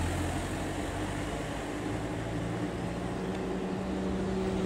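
Street traffic noise: a motor vehicle's engine running with a steady low hum over a general wash of road noise.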